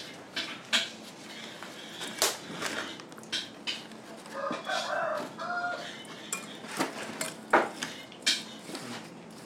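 Scattered clinks and knocks of dishes and utensils, with a chicken calling in the background about halfway through.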